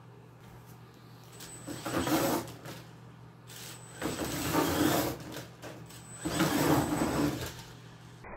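Brushless RC monster truck (Venom Mini Giant) driving in three short bursts of throttle, each about a second long, with the motor's whine and the tyres scrubbing on the floor.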